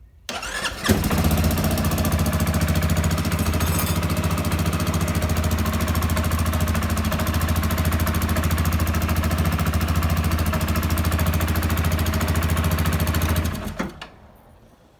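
CFMoto CForce 400/500 ATV single-cylinder engine starting on the electric starter, catching about a second in and idling steadily, then switched off near the end. It runs with its worn upper engine mount freshly replaced, the fix for its knocking and rattling. The room makes it sound louder than it is.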